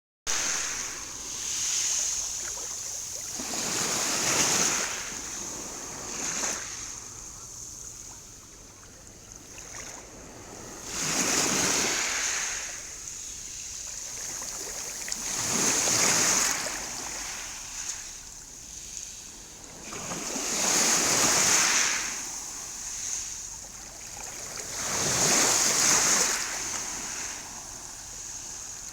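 Sea waves breaking in repeated surges, each swelling up and dying away, about every four to five seconds.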